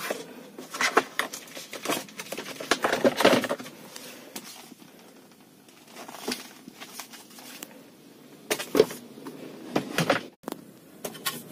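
Rustling and light knocks as paper owner's-manual booklets are pulled from a plastic glove compartment and handled: an irregular run of rustles and clicks in the first few seconds, then a few single handling sounds further on.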